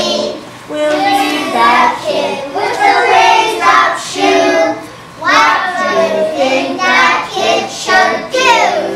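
A child singing, in phrases of a few seconds with short breaths between them.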